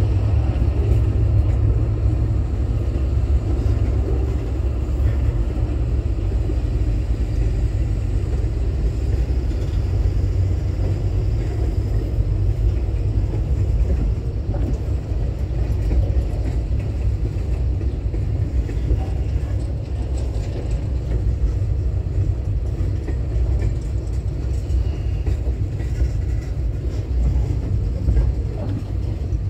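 Intermodal freight train's wagons rolling past, a steady low rumble.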